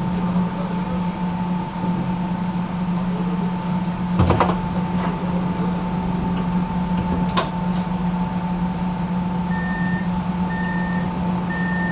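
Inside a tram: a steady low hum and a fainter high whine from the tram's running equipment, with two short knocks. From near the end a short high beep repeats about once a second, the door warning signal.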